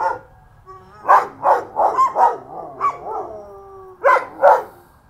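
Belgian Malinois barking in loud bursts, about seven barks starting about a second in, with a drawn-out falling howl between them near the middle.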